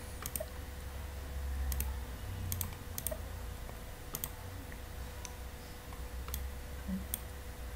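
Computer keyboard keystrokes and mouse clicks: scattered sharp clicks, some in quick pairs, over a low steady hum.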